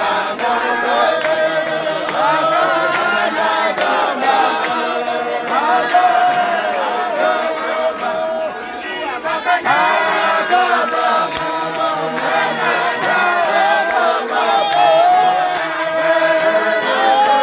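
A group of young men singing a cappella together in harmony, several voices at once.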